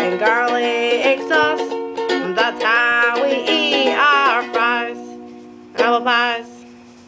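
A woman singing while strumming a ukulele. The singing stops, then a final strummed chord about six seconds in rings out and fades.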